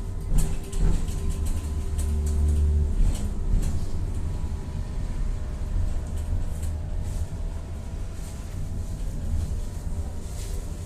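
Tatra-Yug K1M tram running, heard from inside: a steady low rumble of the wheels on the rails, with a steady whine over it and scattered short clicks and rattles.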